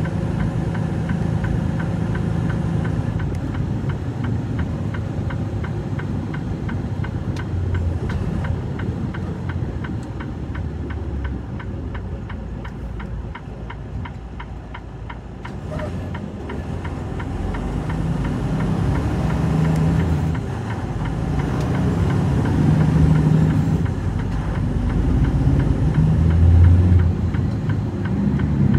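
Truck engine running steadily at idle, then revving up and pulling away. It is quieter around the middle and louder, with shifting pitch, over the last dozen seconds.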